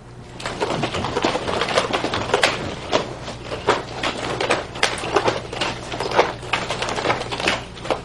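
Chain nunchaku being spun and switched quickly between the hands: a rapid, irregular run of clacks and rattles as the chain links jingle and the sticks slap into the palms and around the hip.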